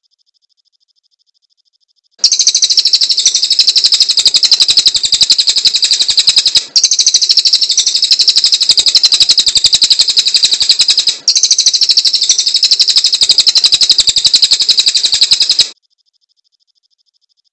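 Cililin songbird singing a sharp, high-pitched song of very rapid repeated notes. It comes in three long stretches with two brief breaks, starting about two seconds in and stopping abruptly near the end.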